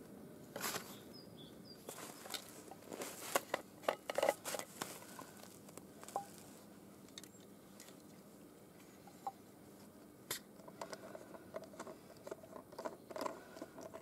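Boots crunching in deep snow, a run of sharp crunches in the first five seconds, then small clicks and rustles as a steel thermos is handled and its cap unscrewed near the end.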